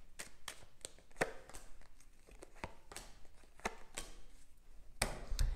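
Tarot deck being shuffled by hand, a steady run of light card slaps about three a second, with a louder rustle near the end.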